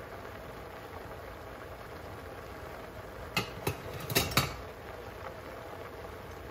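A quick run of four metal clinks of cookware and utensils, over a steady low hiss of food cooking on the stove.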